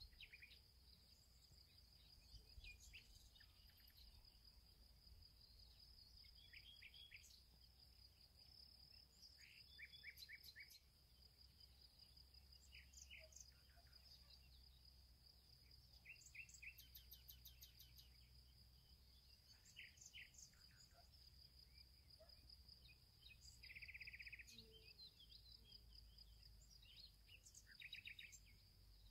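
Faint wild ambience: scattered short bird chirps and trills over a steady thin high tone. A short buzzy trill comes late on.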